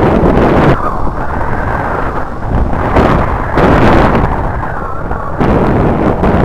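Heavy wind buffeting on an action camera's microphone while riding a Yamaha Byson motorcycle, with the bike's engine under it. It is a loud, uneven rumble that swells and drops every second or two.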